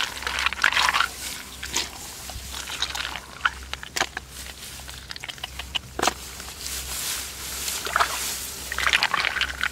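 Hands sloshing and splashing through shallow muddy water while feeling for mud snails, in irregular splashes with scattered small clicks, heaviest just after the start and again near the end.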